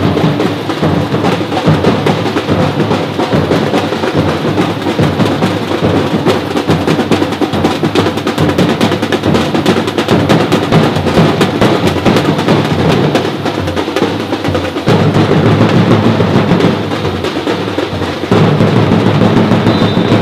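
Percussion ensemble playing a dense, fast Brazilian batucada rhythm on drums, with snare-like rolls over deeper drum beats; it drops back briefly about three-quarters of the way through, then comes in full again.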